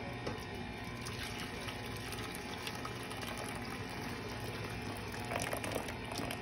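Hot water poured in a thin stream from a stainless steel saucepan into a plastic measuring cup, trickling steadily as the cup fills.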